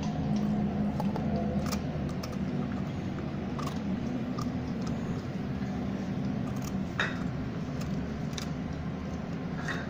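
Puppy chewing a barquillo rolled wafer cookie: scattered small crunches and clicks, with a sharper crack about seven seconds in, over a steady low hum.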